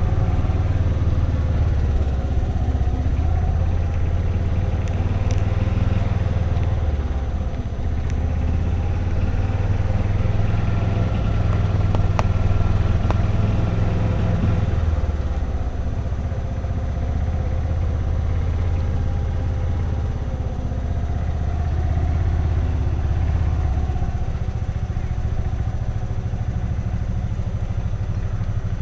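Golf cart running as it drives along a paved road, a steady low motor drone that eases off about halfway through.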